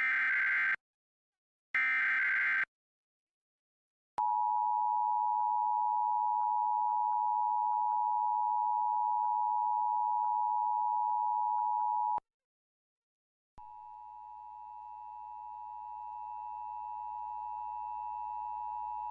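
Emergency Alert System broadcast: the last two short screeching bursts of the SAME data header, then the steady two-tone EAS attention signal for about eight seconds, ending abruptly. After a short silence, a fainter, hissier run of the two-tone signal begins and slowly grows louder.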